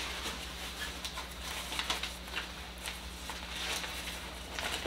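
A softbox's fabric diffuser cover being handled and pressed onto its Velcro strips, giving irregular rustling and crackling with a few louder scrapes. A low steady hum runs underneath.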